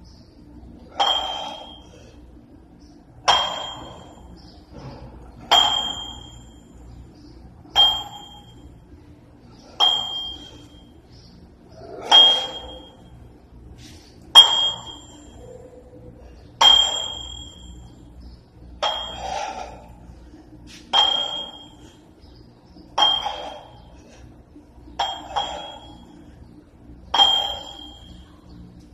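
Plate-loaded dumbbells clinking with each rep of an overhead press: a short metallic ringing clink about every two seconds, in a steady rhythm.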